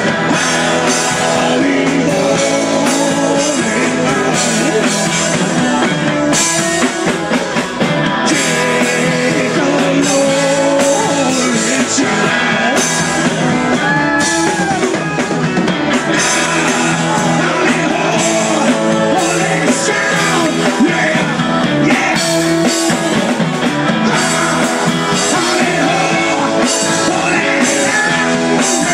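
Live rock band playing, with drum kit and electric guitar, and some singing.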